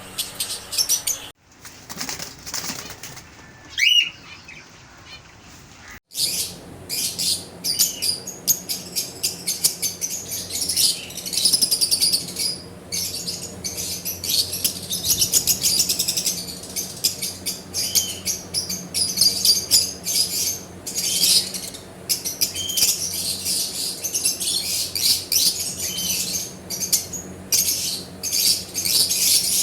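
A flock of ringneck parrots chattering and calling in an aviary: a dense, steady run of rapid, high-pitched chirps and squawks, with one rising whistle about four seconds in.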